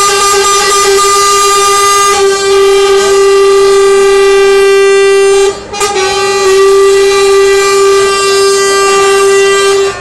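Volvo FH lorry's air horn held in one long, loud, steady blast on a single pitch, broken briefly about five and a half seconds in, then sounding again until it cuts off.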